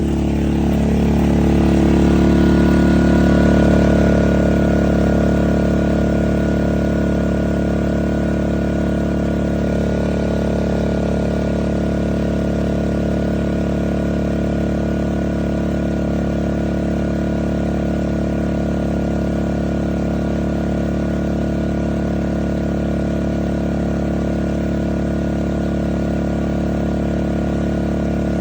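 Westinghouse dual fuel portable inverter generator engine running just after starting. It climbs in speed and loudness over the first few seconds, then settles into a steady, even run.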